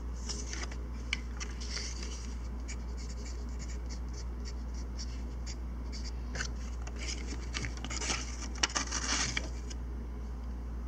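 Small hand tools scraping and clicking against tiny screws and metal and plastic parts during fine disassembly work, with a quick cluster of sharper clicks about three-quarters of the way through, over a steady low hum.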